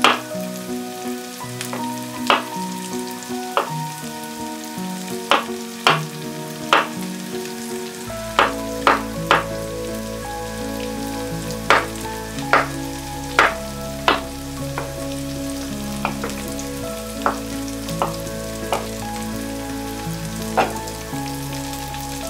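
A chef's knife chopping cooked chestnuts on a wooden cutting board: sharp, irregular chops about once a second. Soft background music with held chords plays under it, and a deep bass comes in about a third of the way through.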